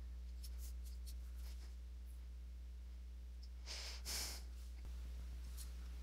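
Quiet room tone with a low steady hum, and a single soft breath about four seconds in.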